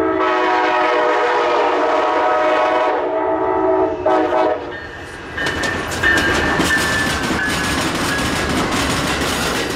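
Amtrak Siemens ALC-42 Charger diesel locomotive sounding its multi-chime horn in one long blast, then a shorter blast about four seconds in. From about five seconds in, the locomotive and its train pass close by, with engine noise and wheels clattering over the rails.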